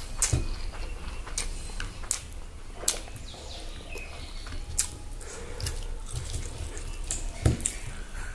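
Eating sounds: irregular wet clicks and squelches as rice and pork gravy are mixed by hand and chewed, with one sharper click near the end.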